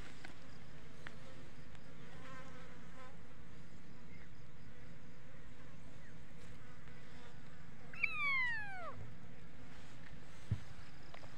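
A young kitten meows once loudly about eight seconds in, a high call falling steeply in pitch over about a second, after a fainter, shorter mew near the start. A steady low buzz runs underneath.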